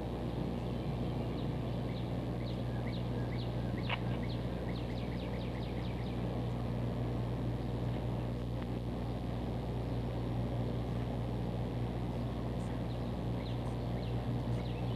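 Steady low hum of an outdoor city street, with small birds chirping in quick runs of short, high notes, busiest in the first six seconds and again near the end.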